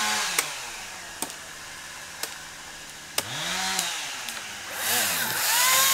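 Chainsaw motor running down just after the start, then speeding up and slowing again twice in short revs, and picking up to a steady run near the end. A few sharp clicks come in the quieter stretch between.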